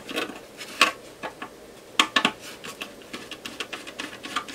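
Flat-blade screwdriver working a handle screw inside a steel instrument case: a run of metallic clicks and scrapes. The sharpest clicks come just after the start, just under a second in, and twice around two seconds.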